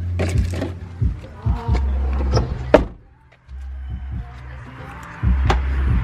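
Background music with a heavy bass beat and a few sharp knocks.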